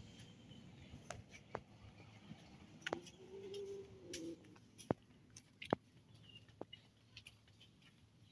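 Kittens chewing fish: scattered small clicks and crunches, the sharpest about five and six seconds in, with a faint drawn-out call about three seconds in.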